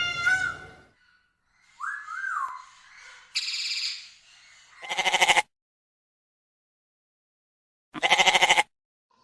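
A series of short animal calls with silent gaps between them, the loudest being two wavering, pulsing calls about five and eight seconds in.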